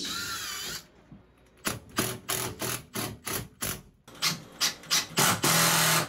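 Tool work during a range hood fitting: a brief wavering squeal, then a run of short noisy strokes about three a second. Near the end comes a steadier stretch of a power tool running with a low hum.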